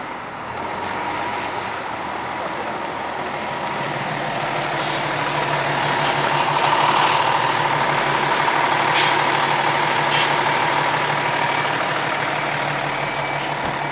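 E-One fire engine's Cummins diesel running as the truck manoeuvres and backs toward its bay, growing louder through the first half. Several short, sharp air-brake hisses are heard, with a steady high tone underneath.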